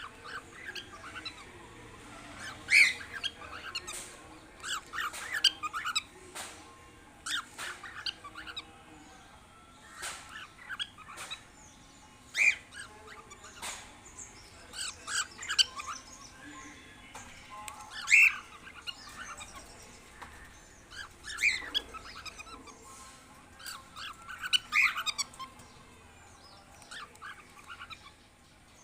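Cockatiels chirping and calling: short, sharp calls every second or so, with several louder squawk-like calls among them.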